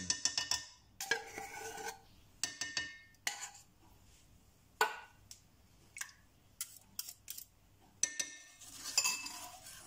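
Metal spoon and wire whisk clinking against a pot and a small bowl: a quick run of clinks with short metallic ringing, then scattered single taps, and a few more clinks near the end.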